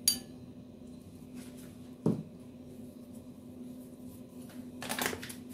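Quiet handling sounds as garlic salt is tipped from a metal spoon into a bowl: a sharp click at the start, a short soft thump about two seconds in, and a brief rustle near the end, over a faint steady low hum.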